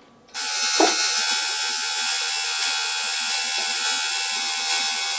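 Electric tattoo machine switching on about a third of a second in, then buzzing steadily.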